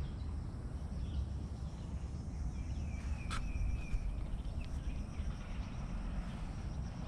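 Outdoor ambience: a steady low rumble of wind on the microphone, with a few faint high animal chirps and a short click about three seconds in.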